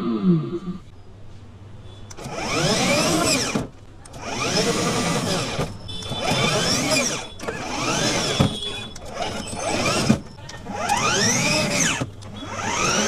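Small electric drive motor of a toy remote-control 4×4 car whining in about seven short bursts, each spinning up and back down in pitch, with brief pauses between them.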